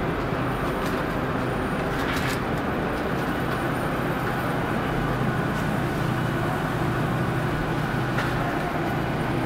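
Steady running noise of an industrial meat-slicing and conveyor line: a constant low hum under a dense machine whirr, with a few faint clicks.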